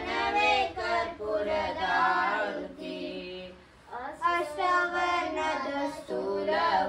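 Female voices singing a devotional prayer song in long held phrases, with a short break about halfway through.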